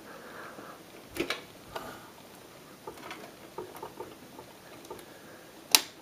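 Light taps and scrapes of fingers working a G.Skill Ripjaws DDR3 memory module past cables into its motherboard slot, then a single sharp click near the end as the module snaps home and the slot's retention clip locks.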